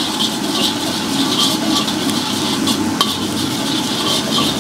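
Nasi goreng (fried rice) sizzling in a steel wok while a long-handled metal spatula stirs and scrapes it in quick repeated strokes, two to three a second. A sharp clink of the spatula sounds about three seconds in.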